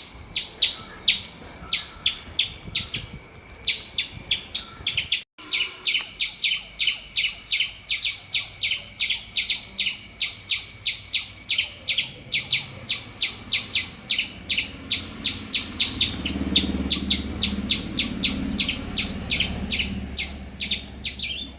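Squirrel chirping loudly in a rapid, even series of sharp high chirps, about four a second, broken off for an instant about five seconds in.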